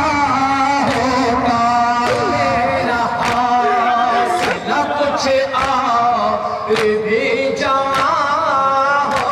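A man singing a noha, a Shia lament, into a microphone in a steady chant-like melody. Sharp chest-beating slaps of matam sound at roughly one a second under the singing.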